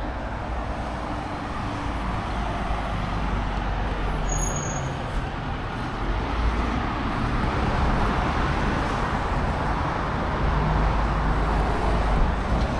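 Road traffic passing on a busy road: a steady rush of tyres and engines that swells and eases. A brief high-pitched squeak comes about four seconds in.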